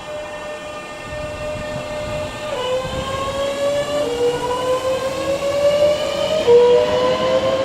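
Electric multiple-unit train accelerating, its traction motor whine climbing in pitch in steps. The whine drops back and rises again three times, over a low rumble, and grows louder.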